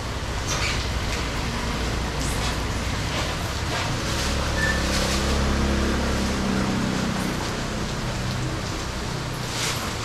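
Heavy rain falling steadily. Around the middle, a vehicle's engine rumble rises and fades as it passes.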